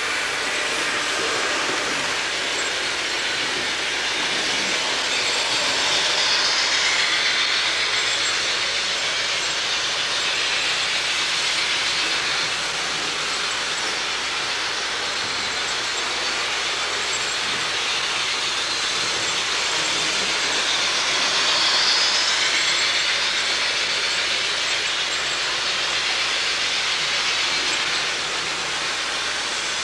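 HO scale model trains running on the layout's track: a steady whirring hiss of small electric motors and metal wheels on rail, swelling twice as a train passes close.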